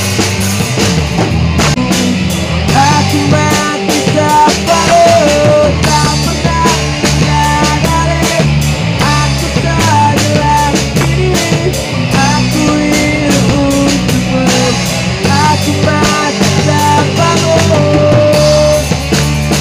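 Electric bass and a drum kit playing a rock song together, with cymbal and drum hits driving a steady beat and a higher melody line gliding between held notes above.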